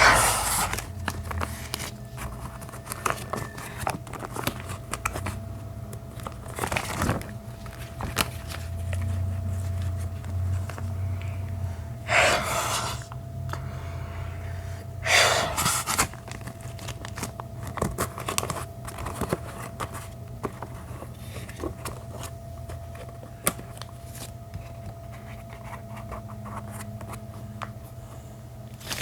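Gloves handled close to the microphone for ASMR, rubbing and crinkling with many small crackling clicks. Louder swishes come about 7, 12 and 15 seconds in.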